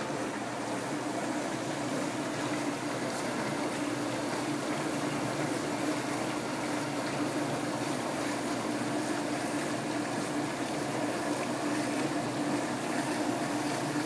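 1965 Lady Kenmore Roto-Rack dishwasher running its wash: water spraying hard against the racks and the door window over the steady hum of the wash pump motor.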